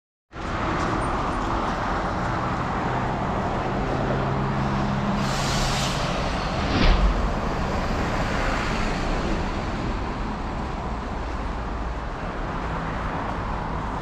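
Road traffic: a steady wash of passing cars with an engine hum for a few seconds, a short hiss about five seconds in and a low thump about seven seconds in.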